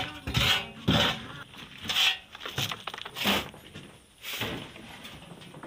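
Steel shovel scraping across the floor of a truck's cargo bed and scooping sand, a rough scrape about once a second, six or so strokes, trailing off near the end.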